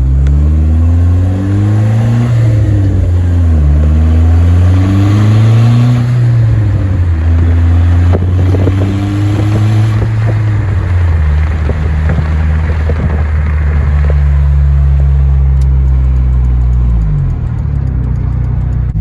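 Dodge SRT-4's turbocharged 2.4-litre four-cylinder engine pulling through the gears of its manual gearbox: the engine pitch climbs and falls back at several quick shifts in the first few seconds, then holds steady while cruising, dropping again near the end.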